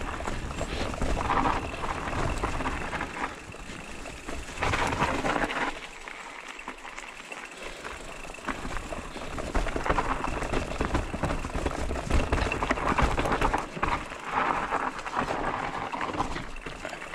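Haibike SDURO FullNine electric mountain bike riding a slippery forest trail: tyres rolling on dirt and the bike rattling and knocking over the uneven ground, quieter for a couple of seconds in the middle.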